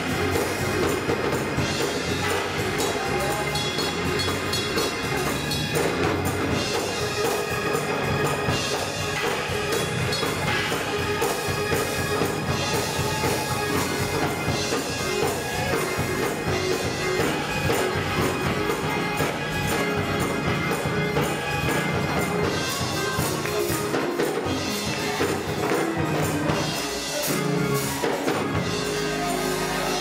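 Live gospel choir singing with band accompaniment and percussion, with hands clapping along.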